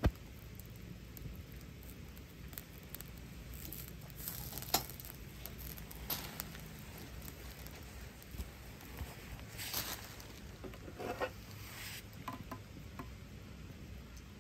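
Faint crackling and light ticking from small wood and fuel fires burning. About ten seconds in, a fleece sleeve rustles and an aluminium mess tin is handled, with a few soft scrapes and clicks.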